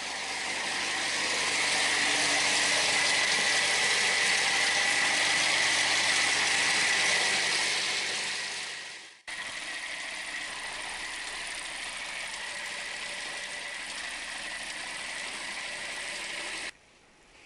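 Toyota Corolla's 1.4-litre 4ZZ-FE engine running steadily, in two takes. The first fades in and out; the second cuts in abruptly at about nine seconds, is quieter, and stops suddenly near the end.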